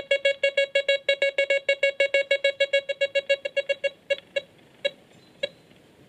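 Desert Gold 3 metal detector sounding its target tone: a rapid even string of about eight short beeps a second, breaking about four seconds in into a few separate beeps.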